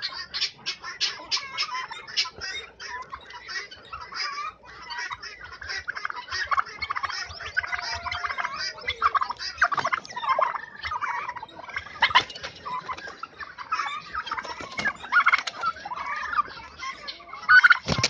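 White domestic turkeys calling in a dense, rapid run of clucks and chirps, with louder sharp calls now and then, while two toms fight.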